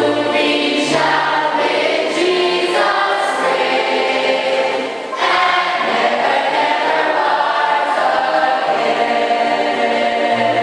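Many voices singing a gospel hymn together, with a short break about five seconds in.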